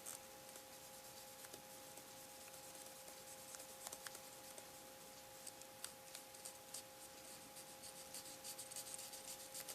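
Faint scratching and ticking of a paintbrush working oil paint over a plastic scale model, in small scattered strokes that grow busier near the end, over a faint steady two-note hum.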